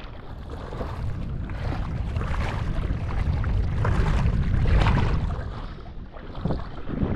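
Wind buffeting the microphone: a low, uneven rumble with a hiss above it, swelling about four to five seconds in and easing off briefly near six seconds.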